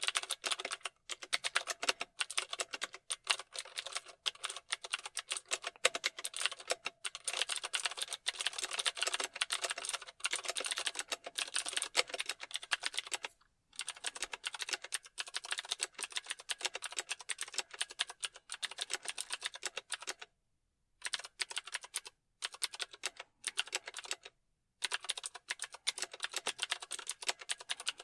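Fast typing on a computer keyboard: a dense run of key clicks, broken by a few short pauses, the longest about two-thirds of the way through.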